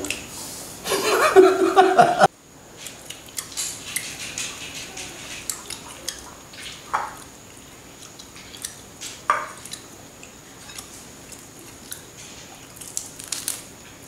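A man's voice briefly, then faint scattered clicks and light clinks of plates and hands during a meal, with chewing and a couple of short, louder knocks.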